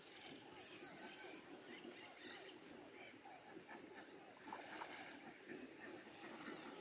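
Faint outdoor chorus of many small animal calls, short repeated chirping notes overlapping throughout, with a thin steady high-pitched tone above them.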